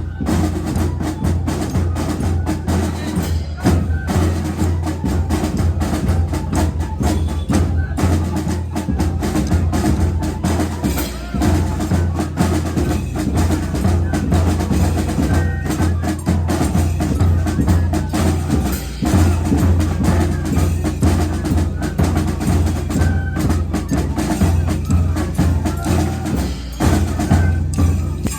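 Music with heavy percussion: rapid drum and wood-block-like strikes over a strong, steady bass.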